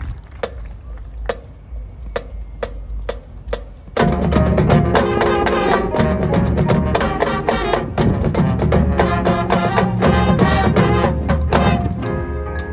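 High school marching band music: for about four seconds a percussion click keeps an even beat, then the full band comes in loud together with drums. Near the end the band settles onto a held chord.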